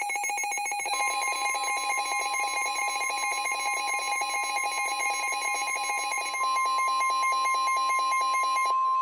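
NOAA Weather Radio warning alarm tone: one steady, loud, high-pitched tone that starts about a second in, after a short lower tone. It signals that a warning is about to be read. A rapid buzz runs under it and cuts off near the end.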